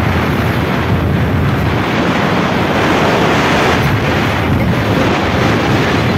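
Wind rushing over the microphone of a moving motorbike, loud and steady, mixed with the bike's road and engine noise.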